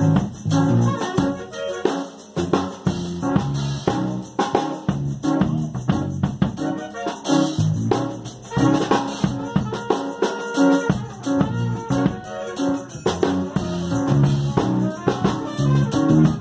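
Jazz big band in rehearsal playing an uptempo fusion groove, with the drum kit loudest and up close, its hits steady over the band's pitched parts.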